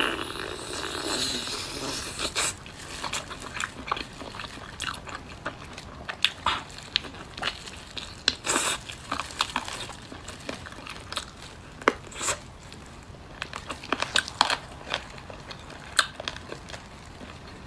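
Close-miked mouth sounds of a person biting and chewing roast Orléans-style chicken wings: irregular small clicks, smacks and crunches of skin and meat.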